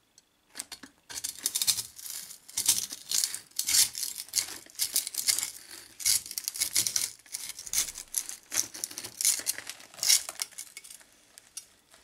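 Sand mould stiffened with water glass (sodium silicate) being broken apart by hand: irregular crunching and scraping of the sand, with metal tongs clinking against the freshly cast aluminium piece.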